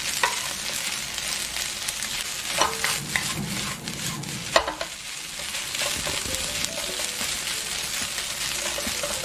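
Egg fried rice sizzling in a nonstick frying pan while a wooden spatula stirs and breaks it up, with a few sharper scrapes and taps of the spatula against the pan.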